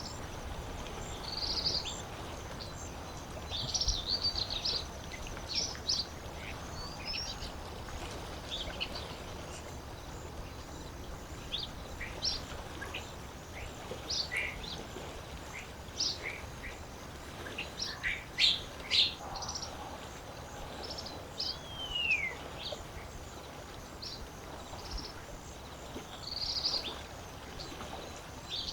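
Several birds singing and chirping with short, scattered calls and one falling whistle about three-quarters through, over a steady soft wash of background noise from the lake ambience.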